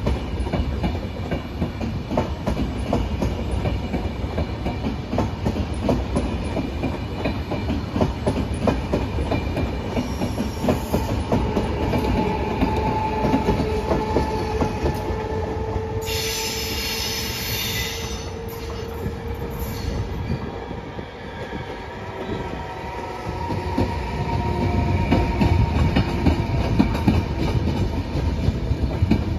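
Train of double-deck Vivalto passenger coaches rolling past, its wheels clicking rapidly over the rail joints. Through the middle the wheels give steady metallic squeals that drift slowly in pitch, with a brief shrill screech about two thirds of the way through.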